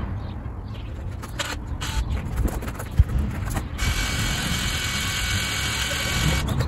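Rhino ATV electric winch running for about two and a half seconds, a steady whine that starts about four seconds in and cuts off abruptly. Before it come footsteps crunching on gravel and a sharp knock.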